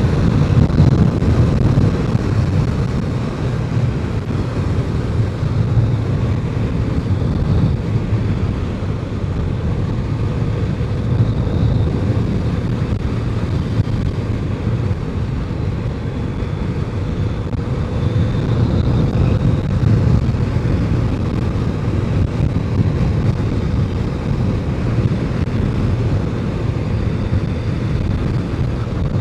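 BMW K1200RS motorcycle at road speed: steady wind rush on the rider's microphone over the inline-four engine's running note.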